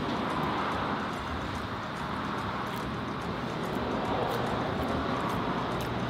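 Road traffic passing steadily, a continuous wash of car noise that swells and eases.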